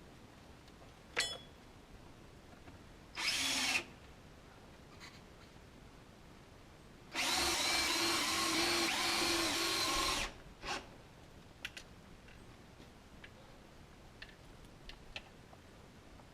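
Power drill driving fasteners into wooden siding boards: a short burst, then a steady run of about three seconds, with a few light knocks and clicks around it.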